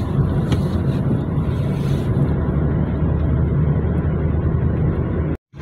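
Car cabin noise while driving: a steady low engine and road drone heard from inside the car. It drops out abruptly near the end.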